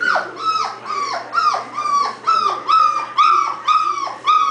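A 27-day-old puppy crying: a run of about ten short, high whimpering cries, two to three a second, each holding its pitch and then dropping off at the end.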